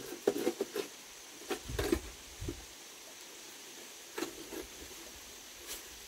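Scattered short knocks and rustles of bamboo poles and dry roof material being handled and pulled, with a couple of dull thuds in the first half.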